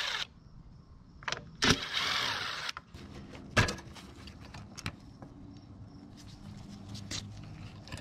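A DeWalt cordless impact driver whirs for about a second as it backs out a screw from the mower's air filter housing. A sharp click follows.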